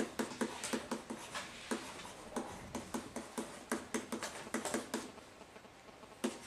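Pen-style stylus tapping and scratching on an interactive whiteboard as letters are written: an irregular run of short clicks and scrapes, several a second.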